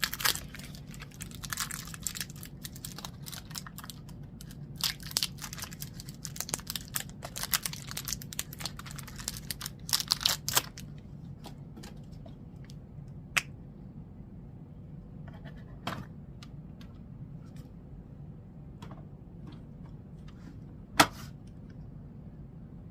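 Ink bottle packaging being torn open and handled, a dense run of crinkling, rustling and clicking for about ten seconds. After that come scattered plastic clicks from the bottles and caps, one sharp click near the end, over a low steady hum.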